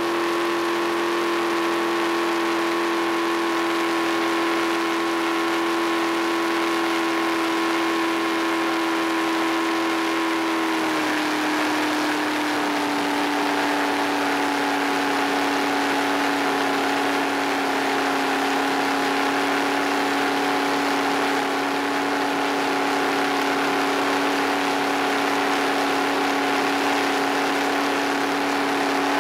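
Jet boat's inboard engine running under way at a steady speed, with a hiss of wind and water over it; its pitch steps down slightly about eleven seconds in and holds steady after.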